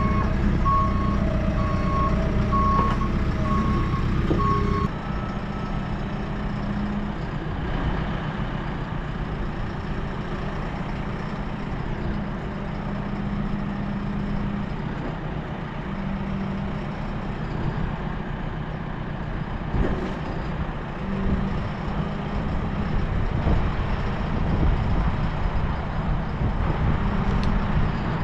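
Diesel engine of a construction-site vehicle running, with a reversing alarm beeping repeatedly for the first few seconds. After a cut the engine runs on, with a few faint knocks.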